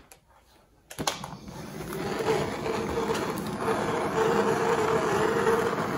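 Hand-held propane torch lit with a click about a second in, then burning steadily with a hiss as its flame heats the aluminium gearcase housing of an outboard lower unit.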